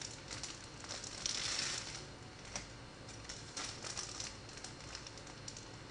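Plastic bread bag crinkling and rustling in irregular bursts as slices of sliced bread are pulled out of it.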